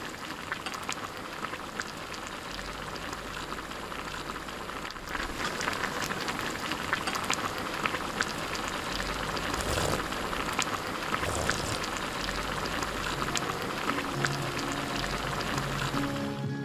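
Spicy ramen stew bubbling in a cast-iron pot over a charcoal fire: a steady crackling fizz of many small pops. Soft background music comes in near the end.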